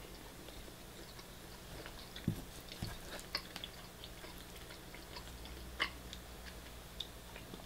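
Quiet eating sounds: chewing, with scattered light clicks of a metal spoon against a plastic food tray.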